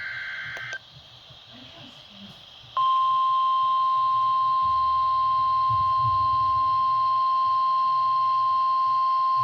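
NOAA Weather Radio alert test: a SAME digital header burst, a shrill two-tone data warble, cuts off under a second in. After about two seconds of quiet, the 1050 Hz warning alarm tone starts: one loud, steady, unbroken beep.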